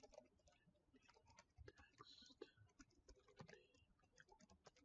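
Faint computer keyboard typing: irregular, quick keystroke clicks.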